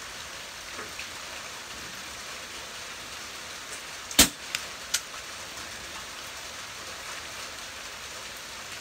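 Steady rain, then about four seconds in a single sharp shot from a .22 pellet air rifle, followed within a second by two fainter ticks.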